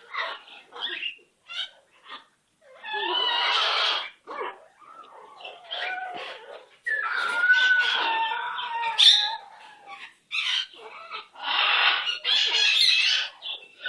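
Pet green parrot giving a string of harsh, raspy squawks, each lasting a second or two, with short chirps and squeaks between them.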